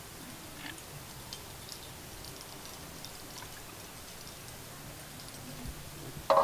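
Faint, scattered light clicks and taps of bamboo tubes and plastic being handled, over a steady low background hum. A sudden, much louder sound comes right at the very end.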